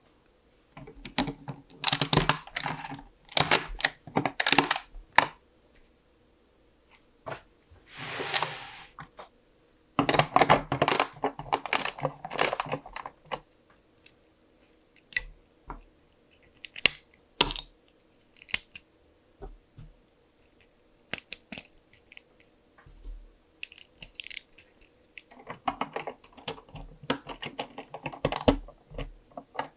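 LEGO bricks being handled and pressed together: irregular plastic clicks and rattles in clusters, with a short rustle about eight seconds in.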